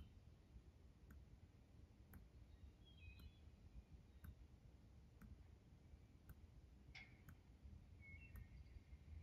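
Near silence outdoors: a soft click repeating about once a second, with a few faint bird chirps.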